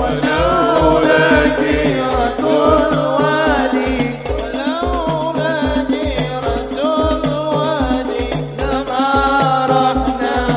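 A male voice singing an Arabic sholawat melody, amplified through a sound system, over a hadroh frame-drum ensemble keeping a steady beat of deep bass strokes, about three a second.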